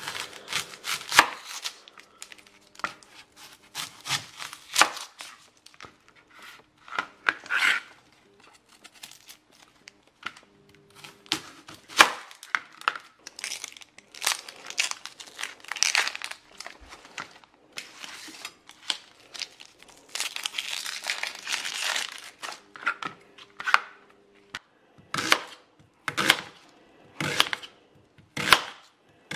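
An onion being cut and peeled by hand on a plastic cutting board: knife strokes through the onion onto the board, and the dry papery skin crackling and tearing as it is pulled off. Near the end comes a run of even slicing strokes, about one a second.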